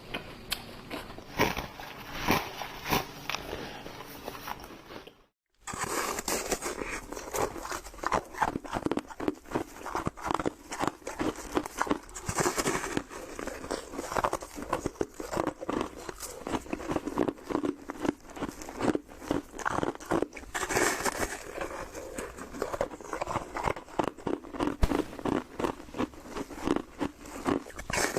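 Close-up crunching of someone biting and chewing frozen snow foam: dense, crisp crackles one after another, broken by a momentary gap about five seconds in.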